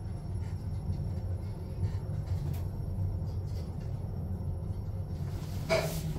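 KONE Ecodisc lift car travelling down between floors: a steady low rumble heard from inside the car. A short, louder noise comes in near the end.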